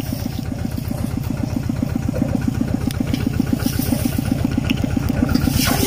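Small engine running steadily with an even, rapid pulse.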